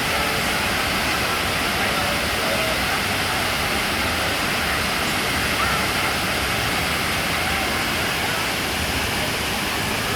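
A 10-metre waterfall making a steady, even rush of falling water.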